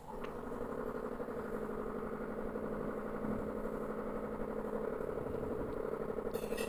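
A steady mechanical hum with a fast flutter: a motor or engine running, starting suddenly.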